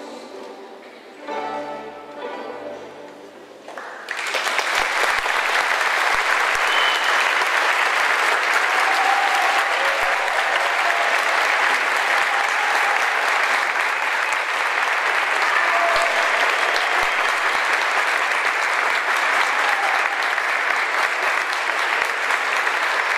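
An orchestra's closing string chords fade, then about four seconds in the audience breaks into loud, steady applause that keeps going.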